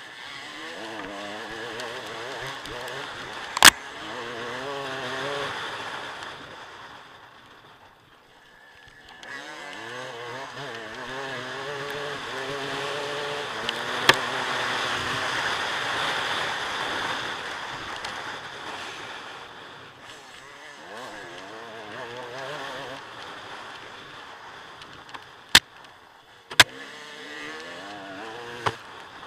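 Dirt bike engine revving, its pitch climbing again and again as it pulls through the gears, easing off briefly around eight seconds in. A few sharp knocks cut through it.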